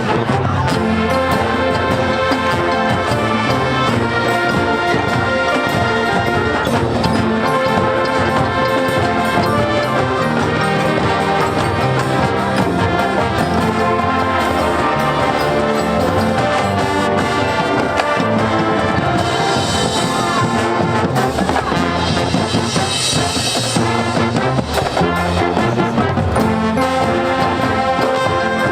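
High school marching band playing a loud, continuous brass-led passage of its field show, with a brighter, hissing stretch in the high range about two-thirds of the way through.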